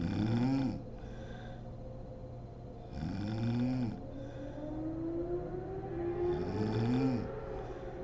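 A sleeping woman snoring: three rough snores about three seconds apart, each rising and then falling in pitch.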